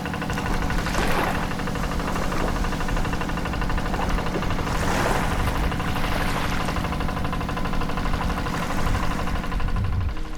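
An engine running steadily at idle, with a few brief rushing noises about one, five and six and a half seconds in.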